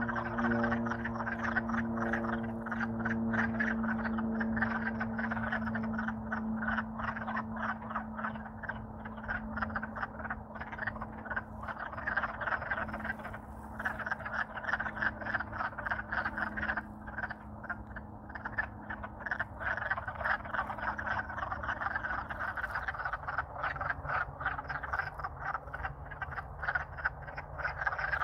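A loud breeding chorus of wood frogs in spring: many short, clucking, duck-like calls overlapping in a dense, continuous chatter. A low steady hum lies underneath, fading out partway through, with a lower hum coming in near the end.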